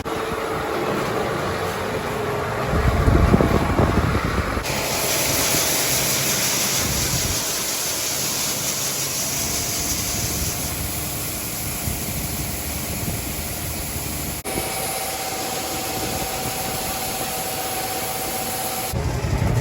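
Heavy farm machinery engines running steadily, in several cut-together clips that change abruptly. A hiss sits over the middle section.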